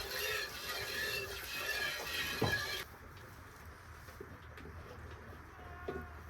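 Birds calling and chirping, with dove-like cooing, until the sound drops off abruptly about three seconds in, leaving a quieter stretch with a few faint knocks.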